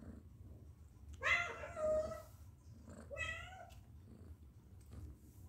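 A domestic cat meowing twice: one long meow lasting about a second, then a shorter one a moment later.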